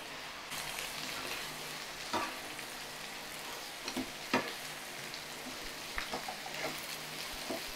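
Sliced onions and carrot strips sizzling in hot oil in a nonstick wok, a steady hiss, while a spatula stirs them and scrapes and knocks against the pan several times.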